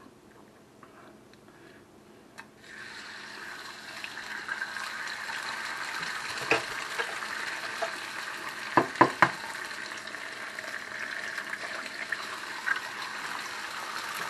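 Eggs frying in hot oil in a ceramic frying pan: a sizzle starts suddenly about two and a half seconds in as the first egg drops into the oil, then carries on steadily. Sharp taps near the middle as a second egg is cracked on the pan.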